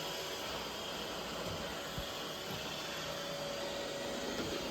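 Roomba robot vacuum running at a distance, a steady hiss with a faint steady tone.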